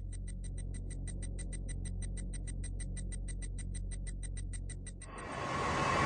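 Fast, even electronic ticking, about seven ticks a second, over a steady low hum. About five seconds in the ticking stops and a rush of noise swells up in its place.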